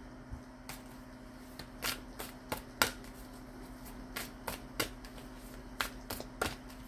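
Tarot cards being shuffled and handled by hand: a series of irregular, sharp card slaps and flicks, about a dozen over several seconds, over a steady low hum.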